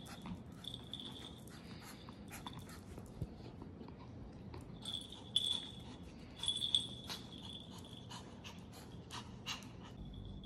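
A small collar bell jingling in short bursts as the pets move about, with light scattered clicks.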